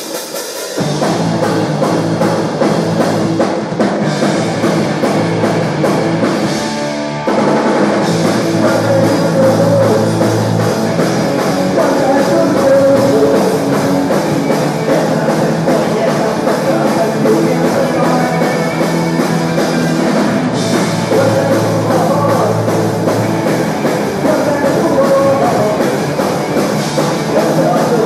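Live rock band playing a song at a sound check: electric guitars, electric bass and drum kit, starting about a second in. Just before 7 s the band drops back briefly, then comes in fuller.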